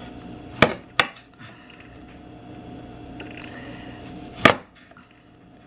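Kitchen knife slicing a tomato on a plate, the blade clicking sharply against the plate as each cut goes through: twice in quick succession about half a second in, and once more near the end.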